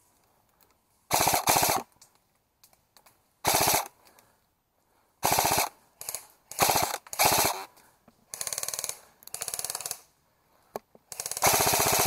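Airsoft electric rifle (AEG) firing a series of short full-auto bursts, each a rapid run of shots lasting under a second, with pauses between. Two bursts in the middle are fainter, and the loudest comes near the end.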